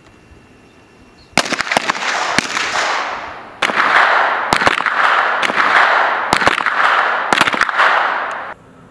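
M17 9 mm pistols firing on a range: many shots in quick succession, overlapping one another and their echoes. The firing starts about a second and a half in, eases briefly near the middle, and stops abruptly near the end.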